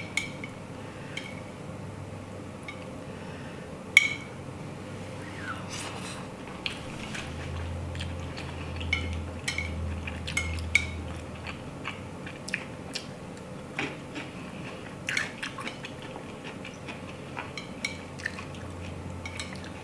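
Chopsticks clicking and scraping against a plate of udon noodles at irregular moments, the sharpest click about four seconds in, with wet eating sounds as the noodles are chewed.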